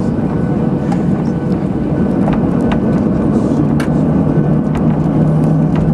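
Cabin noise inside a Boeing 737-800 taxiing: the steady rumble of its CFM56 turbofan engines and airframe, with a low hum that grows stronger about three and a half seconds in and a few light clicks and rattles.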